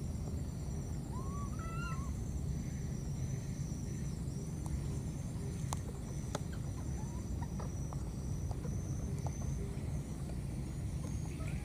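A baby macaque gives a few short rising squeaks about a second in, with a fainter one later, over a steady high insect drone and a low steady rumble; a few sharp clicks come near the middle.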